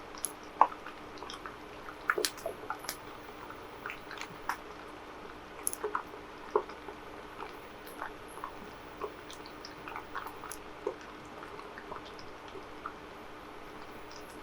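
Chicken nuggets frying in hot oil: a steady low sizzle with irregular sharp crackles and pops, a few a second.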